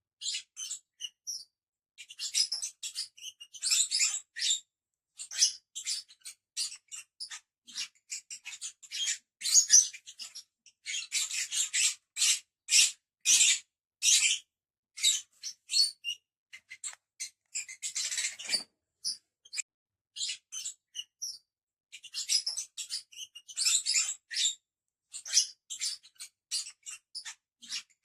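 A group of lovebirds chirping and chattering: many short, shrill, high-pitched calls in quick irregular runs with brief pauses between them.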